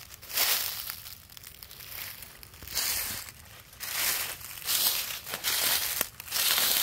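Footsteps crunching through dry brush and undergrowth, one heavy step every second or so.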